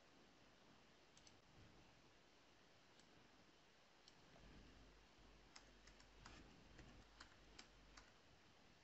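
Near silence with faint computer keyboard keystrokes and clicks, a few scattered ones early and a quicker run of them from about five to eight seconds in.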